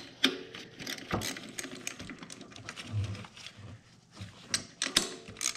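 Hand ratchet wrench clicking, with tools knocking against metal, while the bolts of a car's upper torque strut engine mount are loosened. The clicks are scattered at first and come in quicker runs near the end.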